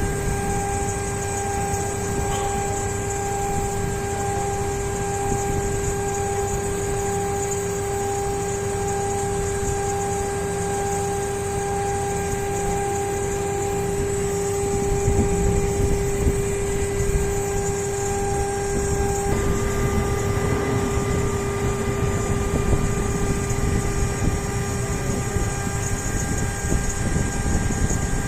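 CNC machine running, a steady whine over a bed of cutting noise. About two-thirds of the way through the whine's pitch pattern changes and the noise grows rougher.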